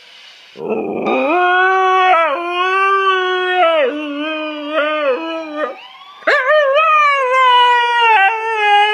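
Siberian husky howling: a long pitched howl that slides up to start, then wavers with quick dips in pitch every half second or so. It fades briefly about six seconds in, then starts again sharply and carries on.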